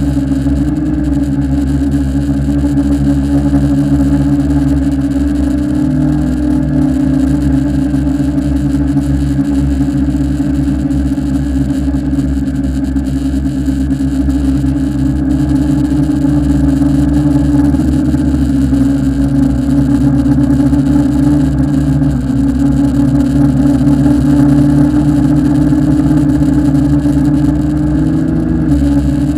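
Tarot 680 Pro hexacopter's six motors and propellers whirring steadily in flight, heard from its onboard camera, the pitch shifting up and down a few times as the throttle changes.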